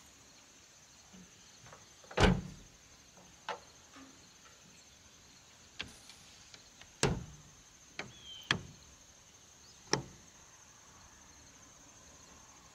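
A pickup's tailgate slammed shut about two seconds in, the loudest thump. Then a series of sharper knocks and clicks as the camper shell's rear window is swung down and latched.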